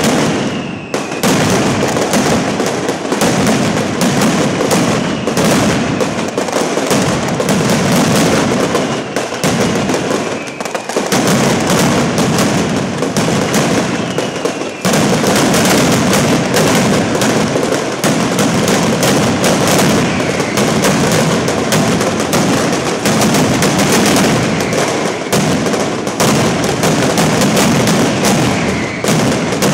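Mascletà: strings of masclet firecrackers going off in a dense, continuous barrage of rapid bangs, with short falling whistles every few seconds.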